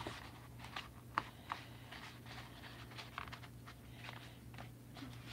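Faint handling sounds of fingers pressing glued black foam pieces together: scattered soft clicks and taps over a steady low hum.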